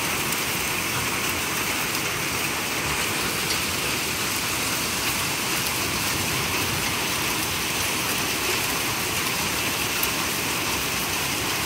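Hailstorm: hail and rain falling steadily, a dense even hiss with a few faint ticks.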